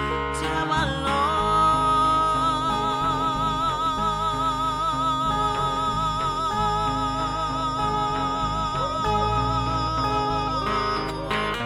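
A woman sings one long held note with a wide vibrato over a plucked string accompaniment, in a live performance of a Dholuo song. The note starts about a second in and ends shortly before the close, when the strings carry on alone.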